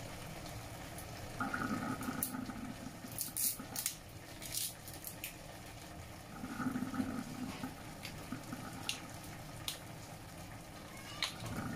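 Chicken pieces simmering in their juices in a wok on an induction hob: a steady bubbling with a few sharp pops. A low hum comes in twice, for about a second each time.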